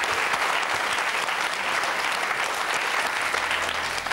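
Television studio audience applauding steadily, a dense patter of many hands clapping. A low steady tone comes in near the end.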